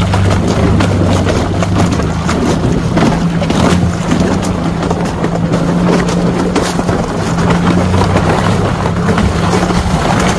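Chevrolet Colorado pickup's engine running steadily at low speed while crawling off-road, with tyres crackling and crunching over ice, stones and shallow water.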